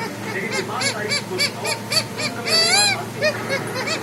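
Parrot laughing: a quick run of short calls that rise and fall in pitch, about four or five a second, with one longer, louder call about two and a half seconds in.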